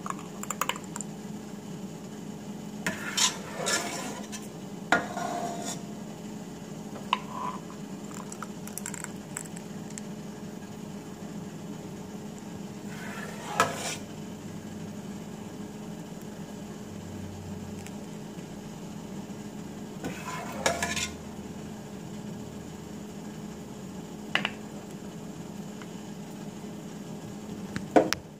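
Scattered clinks and scrapes of a ladle against a glass jelly jar and glass plate as hot jelly is ladled in, over a steady low hum.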